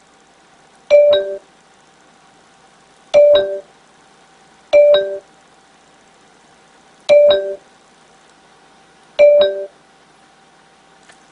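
Finedrive iQ 3D HD300 car navigation unit's speaker playing a short two-note chime, high then low like a ding-dong, five times at uneven intervals of one and a half to two seconds.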